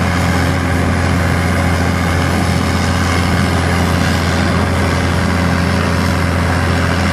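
Bruce SGV-300 hydraulic vibratory hammer running on a steel sheet pile as it drives it in: a loud, steady low hum that holds the same pitch throughout.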